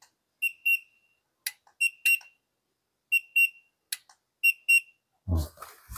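A handheld infrared thermometer beeping as it takes readings: four double beeps, about one every second and a half, with light clicks between them. A rustle of handling comes near the end.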